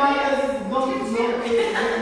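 A man's voice calling out in a drawn-out, sing-song way: "The mother here, please!"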